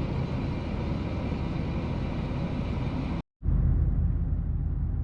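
Steady engine and road rumble of a moving vehicle, heard from inside, cut off briefly about three seconds in before resuming.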